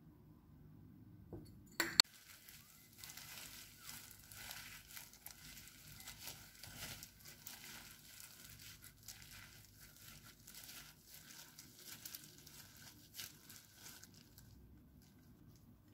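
A single sharp knock about two seconds in. Then disposable plastic gloves crinkle as hands mix and squeeze rice with seasoned seaweed flakes in a glass bowl, with small scattered clicks, quieter near the end.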